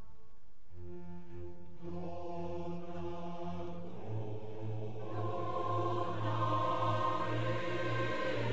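Slow soundtrack music of long held chords. The chords change about a second in and again about four seconds in, and the music grows a little louder in the second half.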